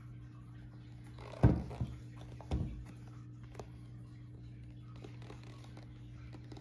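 Leather dress shoes being handled and knocked against a hard surface: a sharp knock about a second and a half in, a smaller one just after, and another about a second later. A steady low hum runs underneath.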